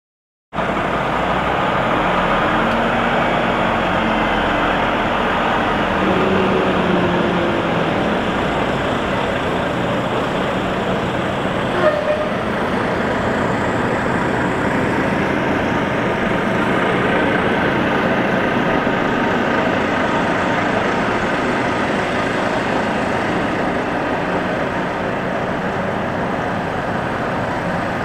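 Steady vehicle engine noise, with one short knock about twelve seconds in.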